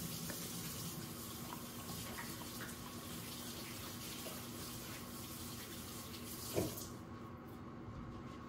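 Kitchen tap running into a sink, then turned off suddenly near the end, with a short knock just before it stops.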